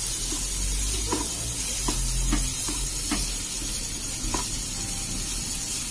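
Black plastic spatula stirring a thick shallot-and-tomato masala in a nonstick kadai, with several irregular soft scrapes and taps against the pan, over a steady sizzle of the masala frying.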